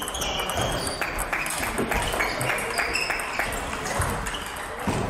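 Table tennis balls clicking off bats and tables in a rally, a quick run of sharp ticks and pings with further rallies at neighbouring tables overlapping it, over background voices.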